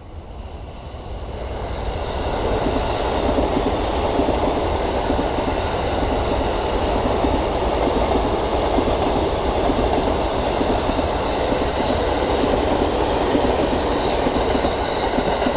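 JR commuter electric train in green-and-orange livery passing on the adjacent track. Its wheels-on-rail running noise builds over the first two seconds, then holds steady and loud.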